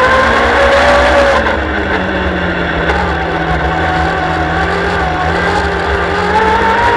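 Superstox race car engine heard on board at racing speed. About a second and a half in, its note drops as the driver lifts for the bend. It climbs again near the end as the car accelerates out of the turn.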